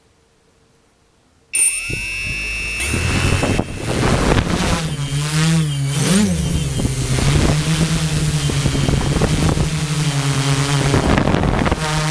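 Multicopter's brushless motors (Turnigy Multistar 4822-690Kv) and propellers starting suddenly about a second and a half in, their pitch wavering and climbing as the throttle goes up for takeoff, then settling into a steady hover hum.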